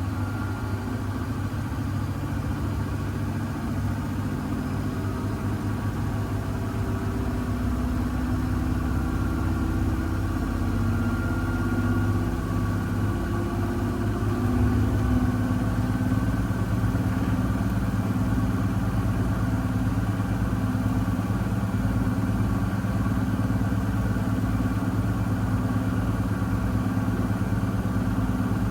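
Miele W1 Active WCA 030 washing machine running. The hum of its ProfiEco motor rises in pitch over several seconds and then holds steady as the drum picks up speed.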